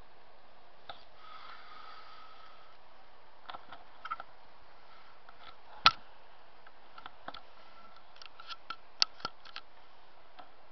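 Steady faint hiss with scattered sharp clicks and taps from a camcorder being handled and panned. The loudest click comes about six seconds in, and a cluster of clicks follows about three seconds later.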